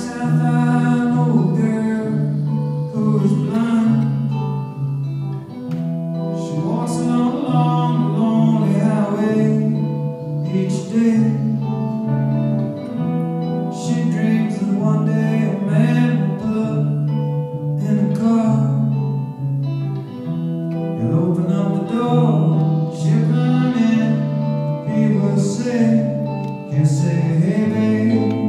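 Live song: a male voice singing over guitar, with a low bass line that alternates steadily between two notes about twice a second.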